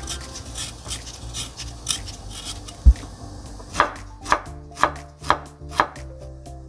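Kitchen knife slicing a knob of ginger on a wooden cutting board: five even cuts about two a second, each striking the board. Before them, lighter scraping clicks as the knife shaves the edges off carrot pieces, and one dull thump about three seconds in. Soft background music enters during the slicing.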